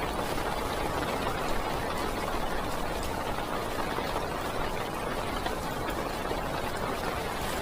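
Heavy rain falling on a parked car, heard from inside the cabin: a steady, dense hiss of drops on the roof and windows with faint scattered taps.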